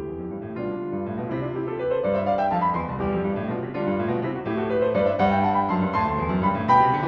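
Background piano music: sustained chords under rising runs of notes that climb twice.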